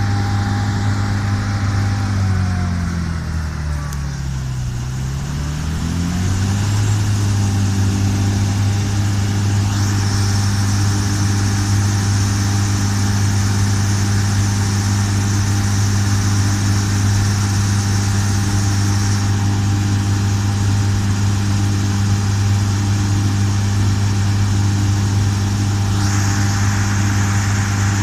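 John Deere S680 combine's diesel engine running steadily, its pitch dipping about two seconds in and coming back up by about seven seconds, with a steady high whine over it.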